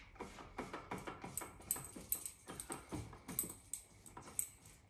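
Spatula scraping down the inside of a Thermomix's stainless-steel mixing bowl: a faint, irregular run of light scrapes and taps, several a second, with a few short squeaks.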